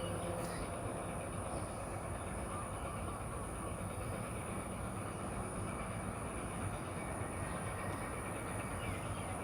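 Steady outdoor background noise with no distinct events, strongest in the low range, with a faint steady high-pitched tone above it.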